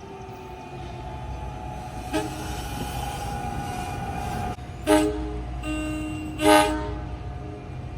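Locomotive air horn sounding over the low rumble of a train: a steady blast from about two seconds in that cuts off, then a short toot and a longer, loudest blast near the end.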